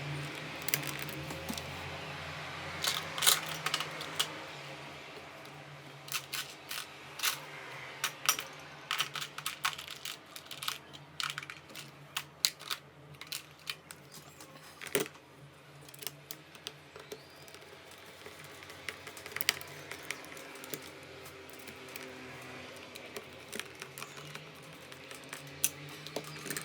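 Irregular light clicks and taps of small hard parts of a manual coffee grinder being handled and worked, densest in the middle, over a faint steady low hum.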